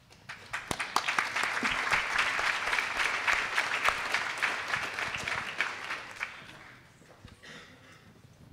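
Audience applauding: the clapping starts about half a second in, swells quickly, and dies away after about six seconds.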